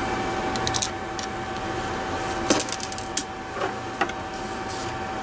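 Small clicks and scrapes of a screwdriver on tiny screws and the plastic shell of a cheap wireless mouse as it is handled, with a quick cluster of clicks about halfway through, over a steady background hum.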